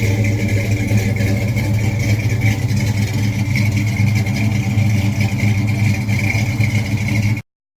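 A loud engine running steadily, starting abruptly and cutting off suddenly near the end.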